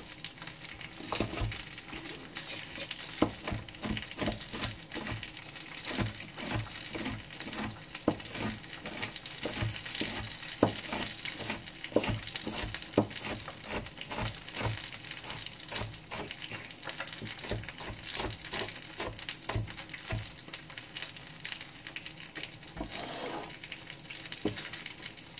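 Kitchen knife chopping hot chili peppers on a cutting board: irregular knocks about two a second, thinning out near the end, over the steady sizzle of dumplings frying in oil.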